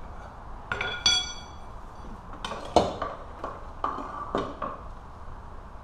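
Metal clinking around the quad's rear brake disc and hub as its Allen-head bolts are worked on: two bright metallic pings that ring briefly about a second in, then a quick run of about six sharp clinks and knocks.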